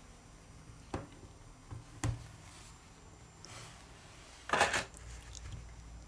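Light sharp clicks of a metal pry tool and an orange suction cup being worked at the edge of a phone's glass back, about a second and two seconds in, then a louder brief clatter about four and a half seconds in as the metal tool is put down on the table.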